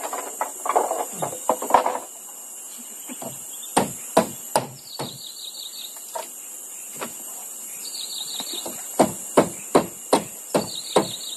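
Hammer driving nails into wooden fence boards: three blows about four seconds in, then a run of about seven more near the end.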